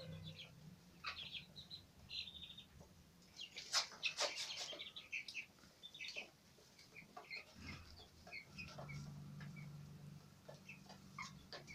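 Young Sasso crossbreed chicks peeping in short, scattered chirps. A cluster of sharp clicks about four seconds in is the loudest moment, and a low hum sets in during the last three seconds.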